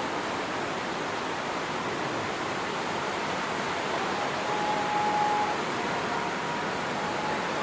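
Steady hiss of background noise, with a faint thin tone that comes and goes, clearest about two thirds of the way through.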